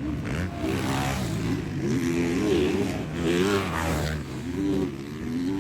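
Motocross bikes racing, several engines overlapping and revving up and down in pitch over and over as they accelerate and shift.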